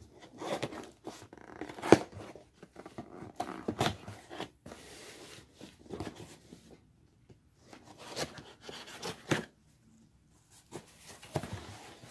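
Knife slitting the packing tape and cardboard of a shipping box: irregular scrapes, rustles and sharp clicks, with a few short pauses.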